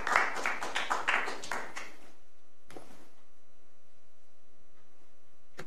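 Audience applauding at the close of a talk, dying away about two seconds in, followed by faint steady room hum.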